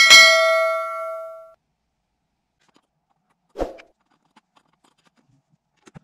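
A notification-bell chime sound effect: one bright ding that rings out and fades over about a second and a half. About three and a half seconds in, a single soft knock.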